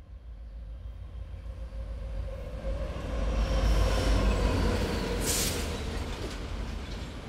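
Passenger train passing close by, a heavy low rumble that builds to its loudest about four seconds in, with a brief sharp hiss a little after five seconds.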